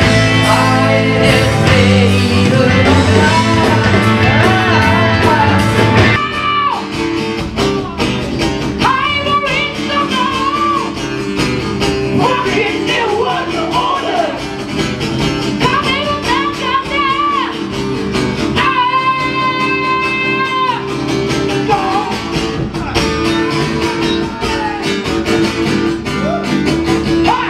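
Live rock band playing loud, with electric guitars, drums and singing; about six seconds in it cuts to a singer with a single guitar accompanying, the voice holding one long note about two-thirds of the way through.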